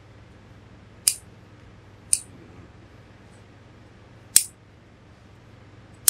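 Large tailor's shears snipping through the skin side of a mink fur coat: sharp single snips as the blades close, one every one to two seconds.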